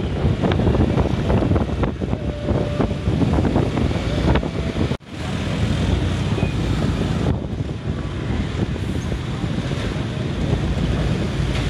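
Wind rushing over the microphone while moving along a road in traffic, with engine and tyre noise underneath. The sound cuts out for a split second about five seconds in.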